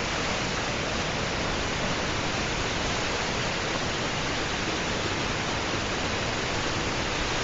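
Small waterfall, water falling and splashing in a steady rush.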